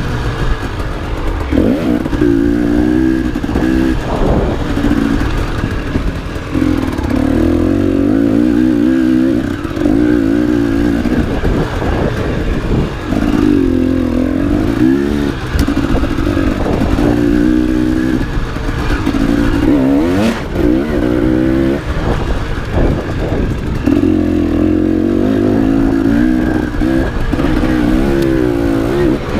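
Enduro motorcycle engine revving up and easing off over and over as the throttle is worked, its pitch wobbling, with scattered knocks and clatter from the bike.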